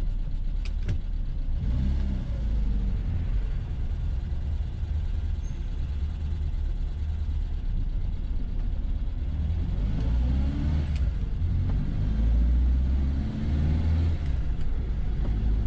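1969 Reliant Regal three-wheeler's four-cylinder engine running on the move, heard from inside the cabin with road noise. The revs climb twice, about two seconds in and again around ten seconds in.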